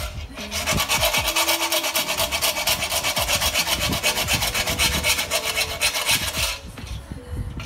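Hand file rasping on metal in quick, even strokes, enlarging a mounting hole so a modified clamp will fit the fork leg; the filing stops about six and a half seconds in.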